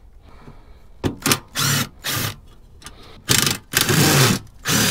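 Ryobi cordless driver running in several short bursts of a second or less each, with brief pauses between, as it backs screws out of a plate on a boat hull.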